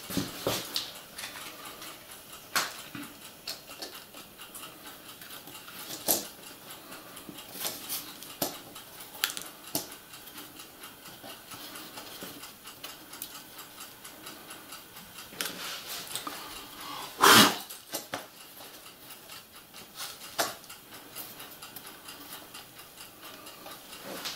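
Plastic H0 model railway track sections and a turnout (Piko A track) being handled and laid on the layout board: scattered light clicks and clatters, with one louder sharp sound about seventeen seconds in.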